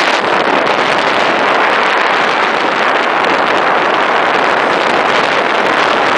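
Snowmobile riding at speed: a loud, steady rush of wind over the microphone with the snowmobile's engine running underneath.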